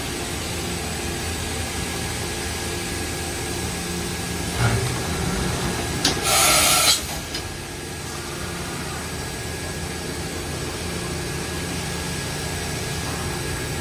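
Mazak Nexus 510C vertical machining center going through a full tool change: a clunk about four and a half seconds in, then a loud hiss of air lasting about a second and a click just after. All of it sits over the machine's steady hum.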